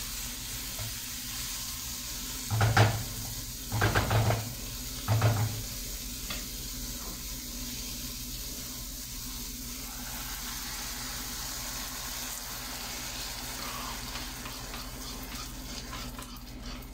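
Sliced onion and mushrooms sizzling steadily in a hot frying pan, with three sharp knocks a little over a second apart about three to five seconds in.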